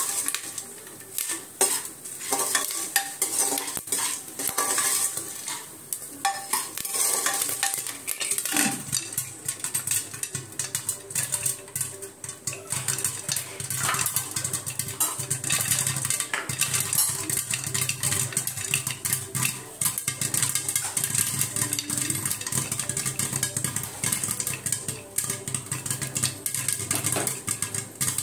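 Steel ladle stirring and scraping popcorn kernels in an aluminium pressure cooker, clinking on the metal. Partway through the lid goes on, and kernels start popping inside the closed cooker as rapid, irregular tapping.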